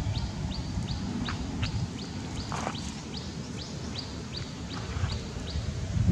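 A bird calling a steady series of short, high chirps, about three a second, with one louder chirp about two and a half seconds in, over a low rumbling background.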